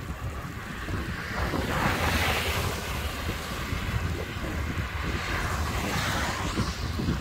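Wind rushing over the microphone of a camera riding on a moving e-bike: a steady low rumble, with two swells of hiss, one about two seconds in and one near the end.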